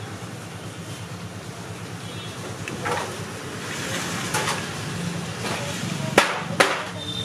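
Bakery work noise: a steady low hum, with faint voices in the background and two sharp knocks about half a second apart near the end.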